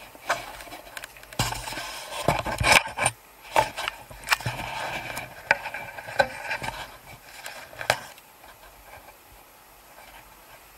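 Footsteps scuffing and scraping over dry grass, loose rock and patchy snow on steep ground, mixed with rubbing and knocking noise close to the microphone. The irregular steps and scrapes thin out to quiet about two seconds before the end.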